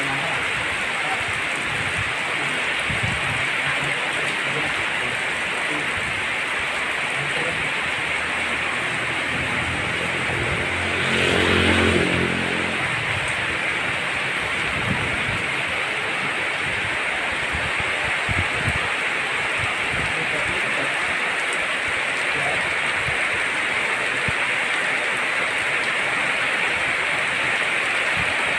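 Heavy rain pouring steadily, a dense hiss. About eleven seconds in, a short pitched drone swells out of it and fades after a second or so.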